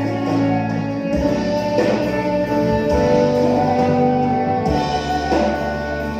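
Instrumental interlude of a gospel worship song: sustained band chords with guitar, the choir not singing.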